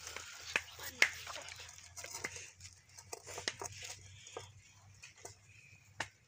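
Pav buns frying in shallow oil in a pan over a wood fire: a faint sizzling hiss broken by sharp pops and crackles, the loudest about a second in and again near the end.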